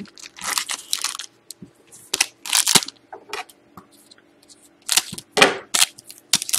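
Foil trading-card pack wrappers crinkling as they are handled, and one pack being cut open with scissors: irregular bursts of crackly rustling, three clusters of them.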